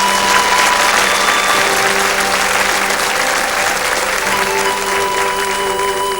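Audience applauding over the instrumental intro of a slow song, with sustained held notes underneath; the applause thins out in the last couple of seconds.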